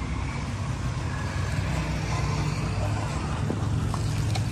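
A motor running steadily, a low even hum, with a couple of light clicks near the end.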